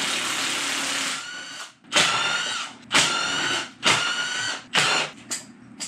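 Cordless power tool with a whining motor, run in one burst of just over a second and then about five short bursts roughly a second apart, loosening bolts on an engine.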